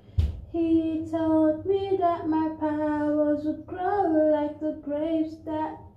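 A woman's voice singing a melody unaccompanied, in long held notes that bend in pitch. A single thump comes just before the singing starts.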